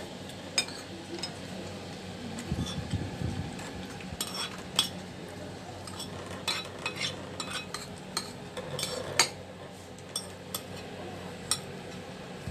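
Metal spoon clinking and scraping against a ceramic dish while eating, as sharp clicks at irregular intervals.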